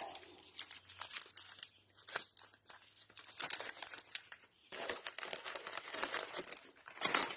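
Piston-ring packaging being handled and unwrapped: crinkling and tearing with quick crackles, busiest in the second half.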